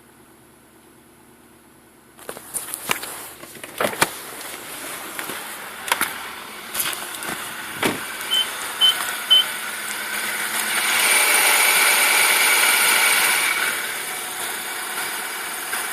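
Nissan Patrol Y62 handled and run in the cold. After a quiet start there are several clicks and knocks of door and controls, then three short chime beeps. The engine comes up louder for a couple of seconds, about eleven seconds in, before easing back to a steady running sound.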